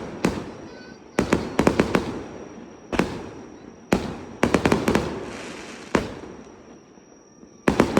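Fireworks going off: sharp bangs, some single and some in quick clusters of several, each followed by a crackling tail that fades over a second or two. A fresh cluster starts near the end.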